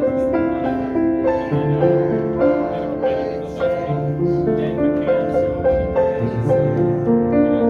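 Background music led by piano: a melody of separate notes stepping over lower bass notes, at an even pace.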